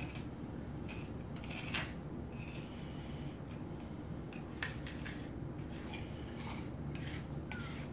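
A cat crunching dry kibble: irregular crisp clicks and crunches, a little faster toward the end, over a steady low background hum.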